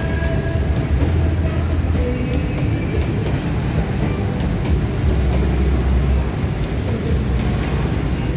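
Freight train of boxcars rolling past close by at a level crossing: a steady, loud rumble of wheels on rails.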